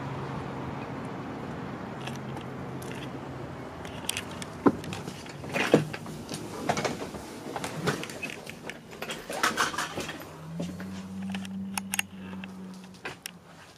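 Footsteps and sharp clicks and knocks as someone steps up into a small Ford bus and moves about inside. A steady low hum plays for the first few seconds, and another low hum comes in near the end.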